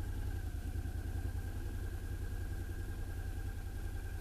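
Motorcycle engine running at low speed as the bike rolls slowly, a steady low throb with a faint steady high whine over it.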